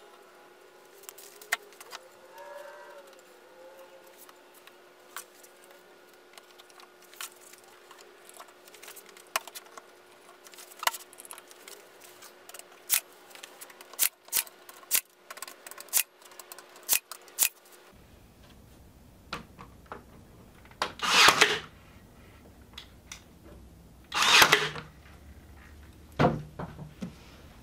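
Scattered light clicks and knocks of wooden rails, a glue bottle and bar clamps being handled on a plywood panel, then near the end two louder bursts of about half a second each and a shorter one as one-handed bar clamps are slid and squeezed tight on the frame.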